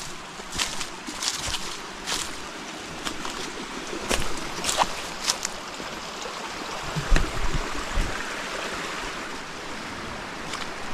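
Small trailside stream running steadily, with scattered short clicks and knocks over it.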